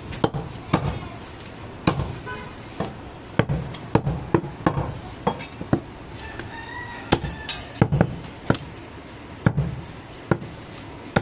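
A heavy butcher's knife chopping goat meat and bone on a wooden log block: a string of sharp thuds, some fifteen strokes at an uneven pace of roughly one to two a second.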